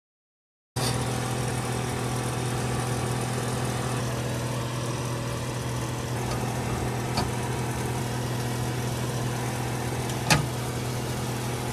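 Steady engine hum, like a vehicle idling, starting abruptly about a second in, with two short clicks or knocks, the louder one near the end.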